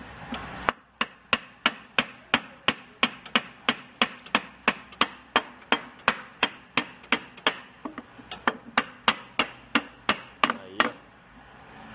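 Hammer blows on a wooden block, an even run of sharp knocks about three a second that starts just under a second in and stops about a second before the end. The blows drive a wet cylinder liner down into a tractor engine block, with the wood keeping the liner from being damaged.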